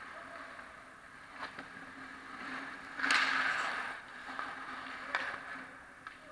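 Ice hockey skates scraping on the ice during a scramble at the net, with a few sharp clacks and one loud hissing scrape about three seconds in, over a steady low arena hum.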